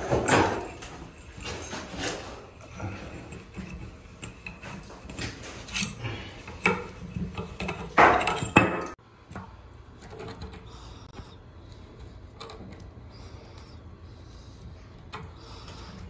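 Clinks and scrapes of an old metal shower arm and its escutcheon flange being worked loose and unscrewed from the wall fitting, with a louder cluster of knocks just before it goes quiet, about nine seconds in.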